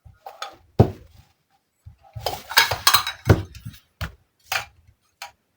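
Miniature toy tea-set dishes and kitchen pieces clicking and clinking as they are handled: a few sharp taps, a quick cluster of rattling clinks in the middle, then single taps near the end.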